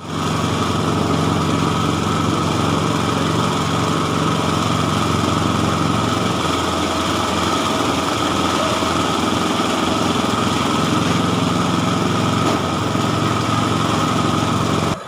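Engine-driven rice threshing machine running steadily, with a constant high whine over the engine. It cuts off abruptly near the end.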